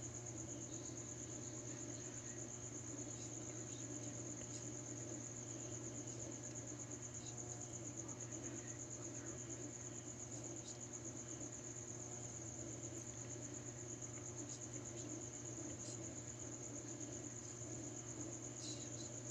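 Crickets trilling steadily in one high, continuous pulsing note, over a steady low hum.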